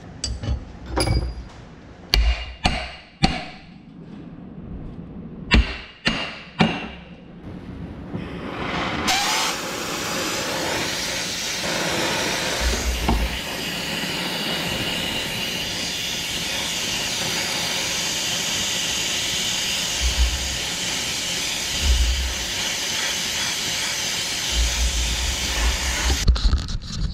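Several sharp metal knocks and clicks, then about nine seconds in an oxy-fuel torch is lit and burns with a loud, steady hiss. The torch is heating a hub wedged tight on the drive pod's shaft, to free it.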